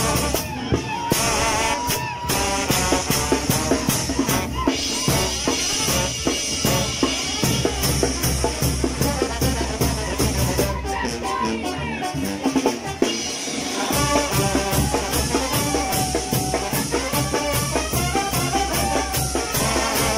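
Mexican banda brass band playing a pasodoble, with a steady drum beat under the melody; the low bass drops out briefly a little past halfway, then comes back.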